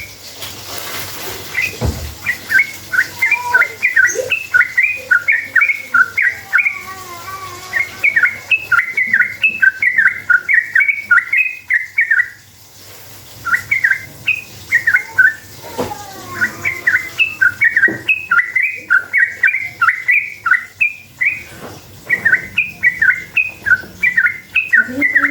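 Yellow-vented bulbul singing a long, fast run of short, bubbly chattering notes, several a second, broken by two brief pauses.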